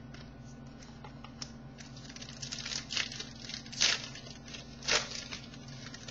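Topps Finest baseball cards being handled and slid one off another: light clicking and rustling, with three louder swishes about three, four and five seconds in.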